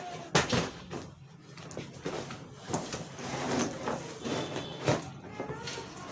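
A Nerf blaster's cardboard and plastic packaging being opened and handled: sliding scrapes and rustling with a few sharp knocks, the loudest about half a second in and again near five seconds.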